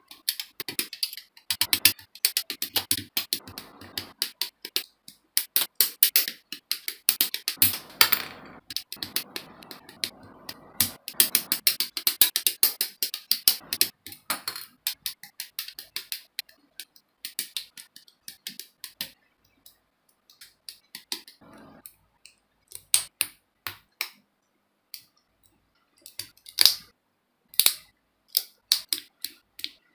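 Plastic model-kit parts being clipped off their runners with hobby side cutters: many sharp snips and plastic clicks, densest through the first half, then fewer, more spaced clicks as small parts are pressed and snapped together near the end.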